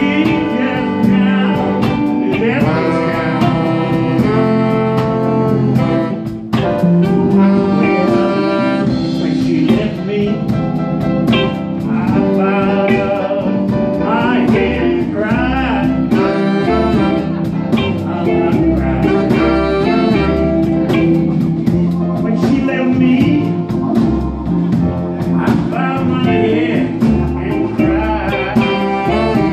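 Live blues-jazz band playing with saxophone and trombone horn lines over grand piano and electric guitar, driven by a steady beat.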